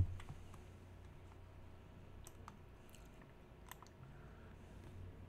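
A sharp knock right at the start, then a few scattered clicks from a computer mouse and keyboard, over a low steady hum.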